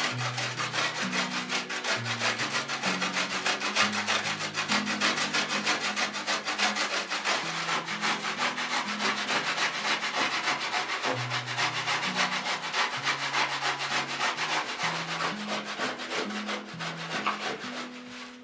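Hand grater rasping in quick, even strokes, several a second, as meat is grated into mince.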